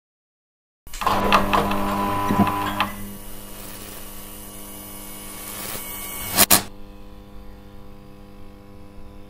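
Neon sign switching on: a sudden loud electrical buzz with crackling about a second in, settling after a couple of seconds into a steady, quieter mains hum. About two-thirds of the way through, a sharp double crack as part of the sign shorts out, and the hum carries on.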